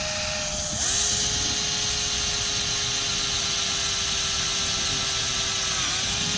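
Electric drill running while drilling a hole in a car door handle: a steady motor whine that drops in pitch and gets a little louder about a second in, holds, then rises again near the end.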